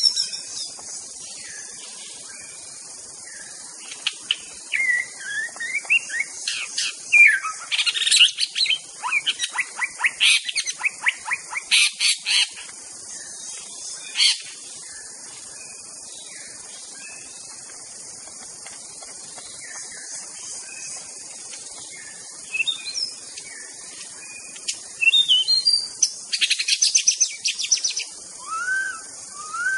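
White-rumped shama (murai batu) singing: loud whistled phrases that glide up and down, broken by rapid rattling trills, with a pause of several seconds in the middle, over a steady high hiss.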